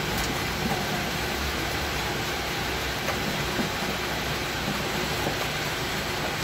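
Dewatering screw press running with a steady mechanical hum and low drone as it pushes out its dewatered cake of press mud and kitchen waste.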